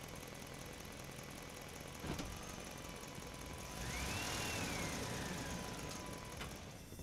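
An engine running steadily. It grows louder through the middle, with a whine that rises and then falls, and there is a sharp click about two seconds in.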